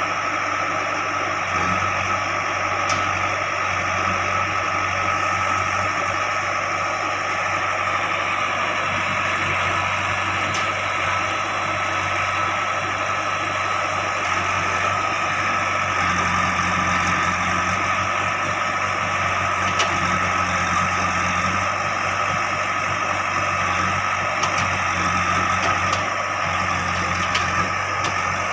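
JCB 3DX backhoe loader's diesel engine running steadily while working, its low note swelling for a few seconds at a time, with a few faint sharp clicks.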